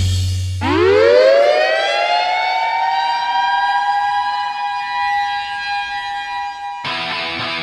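Mechanical air-raid style siren winding up from a low growl to a high steady wail and holding it, then cut off near the end as music comes in.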